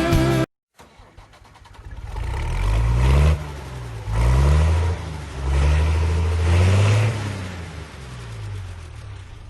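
A vehicle engine accelerating: its pitch climbs and then drops back several times, as if it is shifting up through the gears. It gradually fades toward the end.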